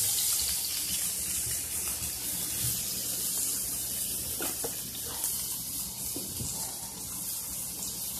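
Patties frying in a pan on the stove, a steady high sizzle.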